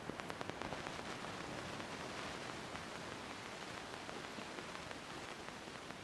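Steady rushing hiss of water outdoors, from falling water and the shore. A fast, even ticking, about eight ticks a second, fades out in the first second.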